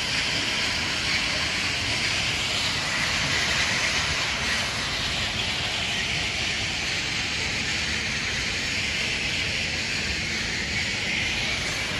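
Toothed conveyor belt at a hydroelectric dam running, pulling muck up from the river: a loud, steady mechanical noise with a low rumble beneath.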